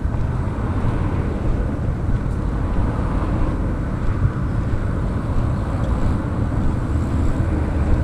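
Steady low rumble of passing road traffic, with wind buffeting the microphone.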